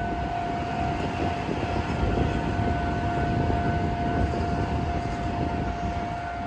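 Railway level crossing warning sounding a steady tone, over the low rumble of a Ryutetsu Nagareyama Line train running past the crossing; the rumble is loudest in the middle.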